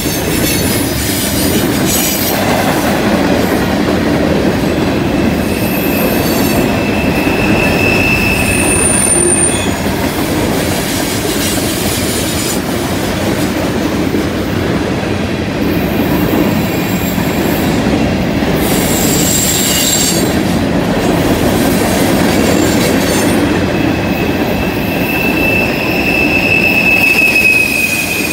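Loaded freight cars rolling past on a curve: a steady rumble of steel wheels on rail, with high-pitched wheel squeals from the curve coming and going, one around a third of the way in and a longer one near the end.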